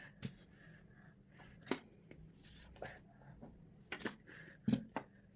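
A few scattered light clicks and rustles of small objects being handled, several seconds apart.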